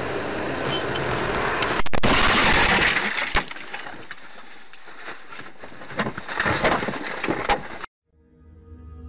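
Car crash heard from the dash cam: steady road noise, then a sudden loud impact about two seconds in, followed by crunching and a run of knocks and bangs as the car goes over. The sound cuts off near the end and soft background music fades in.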